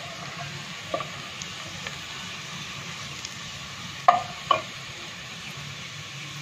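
Sliced onions sizzling in hot oil in a metal pot, stirred with a wooden spatula that knocks against the pot about one second in and twice just after four seconds.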